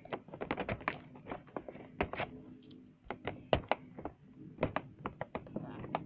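Fingernails picking and scratching at a stuck sticker on a plastic toy train tender, an irregular run of quick clicks and taps.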